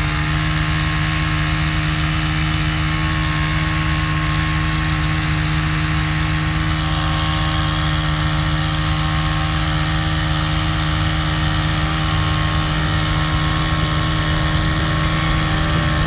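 Case IH Axial-Flow combine running at a steady speed with its threshing and cleaning system engaged. It is being run empty to blow chaff and dust out of the machine, with a constant-pitched mechanical hum.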